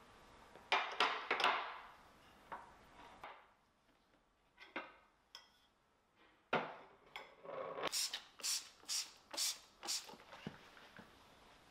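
Objects being set down and moved on a glass-topped coffee table: a marble tray and glass pieces knocking and clinking against the glass, in scattered knocks with a quick run of sharp clicks near the end.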